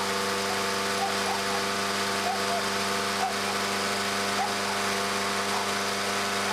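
Lawn mower running at a steady, unchanging pitch, with a few short high whines from a pug scattered over the drone.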